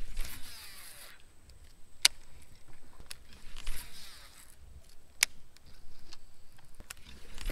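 Baitcasting reel spool whirring as line pays out on a cast, falling in pitch as the spool slows; this happens twice, with a third cast starting at the very end. Single sharp clicks come between the casts.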